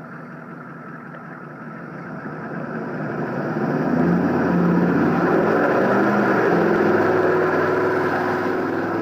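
Chevrolet pickup truck engine revving hard under load as the truck tows a trailer through mud with its rear wheels spinning. It grows louder from about three seconds in and stays high.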